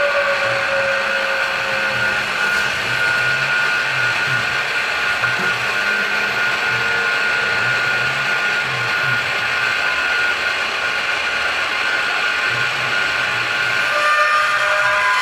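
Precision Matthews PM-727M CNC mill cutting aluminium angle with an end mill under mist coolant. A steady whine from the spindle and cut runs over a hiss of coolant spray, growing a little louder near the end.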